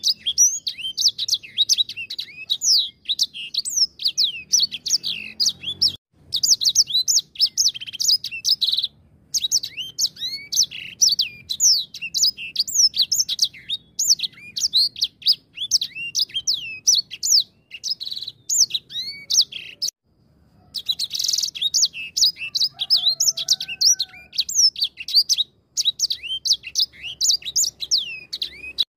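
Caged edel sanger (grey singing finch) singing a long, fast song of high chirps and trills, with short breaks about six, nine and twenty seconds in.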